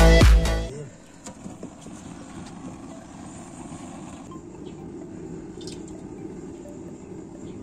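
Electronic intro music cutting off about a second in, then the steady low rush of a wood fire burning in the stove under a kazan, with a few faint crackles.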